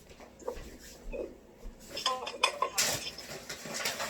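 Kitchen dishes and utensils knocking and clinking against a counter as they are handled: a few scattered light knocks at first, then a busier run of clinks in the second half.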